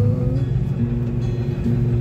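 Music with a plucked guitar over the low rumble of a vehicle idling in stopped traffic.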